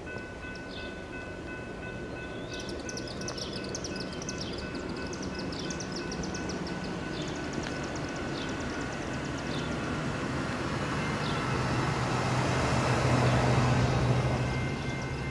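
Approaching diesel freight train led by an EMD SD40-2 and GP38-2: the locomotives' low engine drone and the train noise grow steadily louder, loudest near the end. Birds chirp through the first half.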